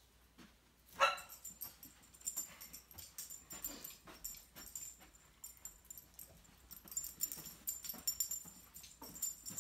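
A dog gives a short whine about a second in, then its metal prong collar and leash chain jingle and click steadily as it is walked on lead.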